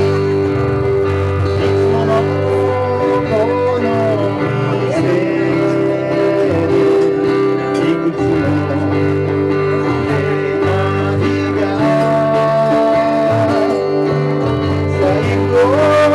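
Live acoustic band: several acoustic guitars strummed together, with a man singing a melody into a microphone over them.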